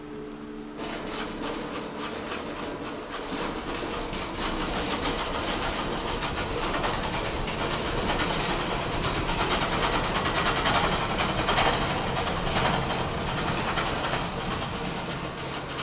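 A home-built wide bandsaw mill's blade cutting slowly through an elm log. It makes a steady, dense sawing noise that starts about a second in, builds louder over the cut and drops away at the end, over the hum of the mill's motor.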